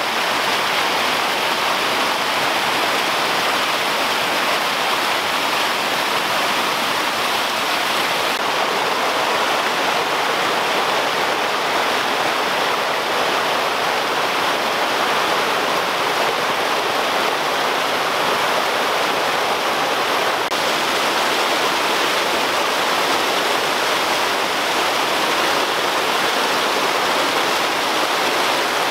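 Small waterfalls cascading over boulders into a rocky creek: a steady, loud rush of water, changing slightly in tone about 8 and 20 seconds in.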